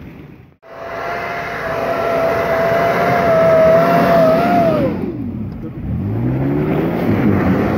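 Mitsubishi Pajero's 3.5-litre V6 revving hard and held high while its tyres spin in deep snow, the vehicle struggling for traction. The revs drop sharply about five seconds in, then climb again. A brief break in the sound comes just under a second in.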